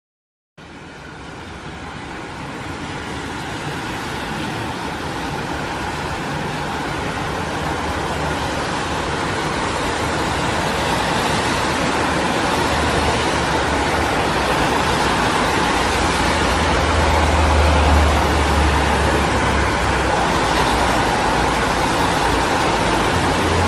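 Road traffic noise fades in after a brief silence and builds gradually: a dense, steady wash of passing vehicles with a low engine rumble that strengthens in the second half.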